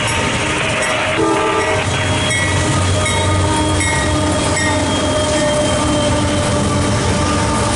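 CSX diesel freight locomotives passing close: a low engine rumble and wheels clattering over the rails, with the horn sounding in steady tones.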